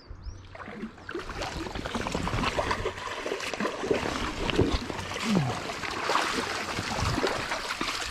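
Water splashing and sloshing in shallow river water as a hooked salmon kelt is scooped into a landing net, with scuffing and knocks of the net being handled; it gets busier about a second in.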